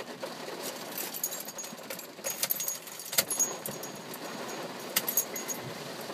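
Rain hitting a car's roof and windows, heard from inside the car: a steady wash of noise with many irregular sharp ticks of drops striking.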